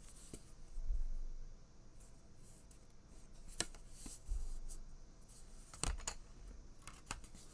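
Handling noise from wooden book nook kit parts: scattered light clicks and taps, about half a dozen, with a few soft low thumps.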